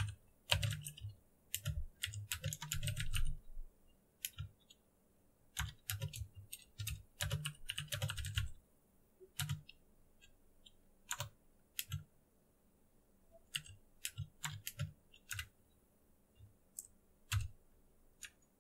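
Typing on a computer keyboard: quick runs of key clicks in the first half, then sparser single keystrokes.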